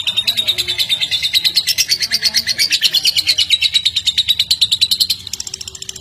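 Fischer's lovebird giving a long unbroken ngekek: a rapid, evenly repeated string of shrill chirps with no pause, the long non-stop kind that bird keepers call 'konslet'. About five seconds in it turns a little quieter and higher.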